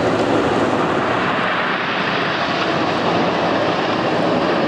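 A fixed-wing aircraft's engine noise, loud and steady, with no clear pitch.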